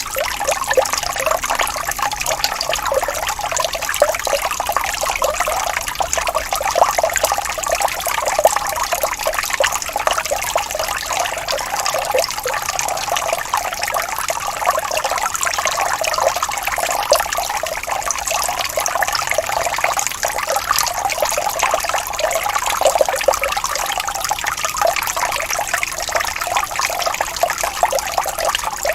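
Gently rippling stream running steadily: a continuous, even babble of small splashes, light and bright, with little deep rumble.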